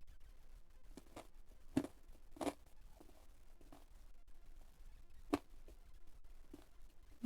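A person chewing crispy fried food up close: a few soft, separate crunches and mouth clicks, with quiet gaps between them.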